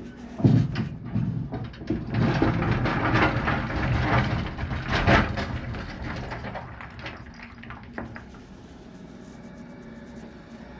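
Broken concrete and river rock clattering and scraping as the old porch is torn out, over the steady hum of running machinery. The dense clatter and knocks come in the first half, then settle to a few scattered clicks.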